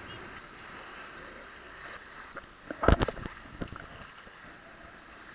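Small waves washing onto a sandy beach under a steady hiss. About three seconds in, a quick cluster of loud knocks and rubbing from the camera being handled as it turns.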